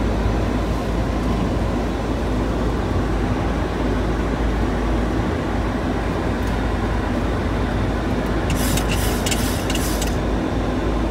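Steady rushing noise on the flight deck of a Boeing 737-800 descending on approach: airflow around the cockpit and the engines, with a faint hum. A short run of crackling clicks comes about eight and a half seconds in and lasts about a second and a half.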